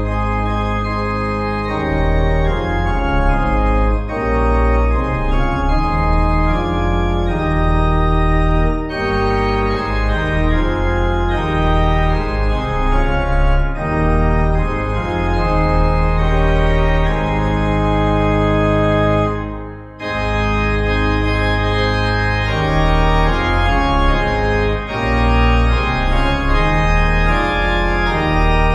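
Church organ playing a hymn tune in full sustained chords, with a short break about two-thirds of the way through before it starts again.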